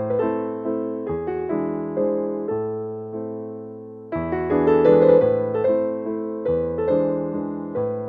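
Background piano music: gentle chords and a melody, each note struck and dying away. The playing thins and fades about halfway through, then a louder phrase comes in.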